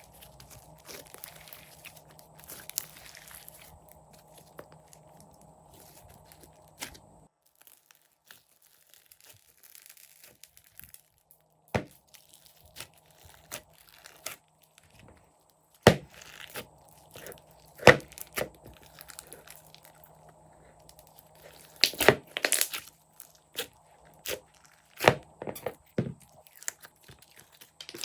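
Slime being squished and worked by hand: sticky crackling, then a string of separate sharp pops and clicks, several of them loud, in the second half.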